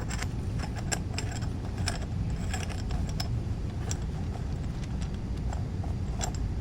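Metal and plastic parts of a multi-tool axe and shovel kit clicking and knocking as they are handled and fitted back into their storage. Irregular sharp clicks over a steady low rumble.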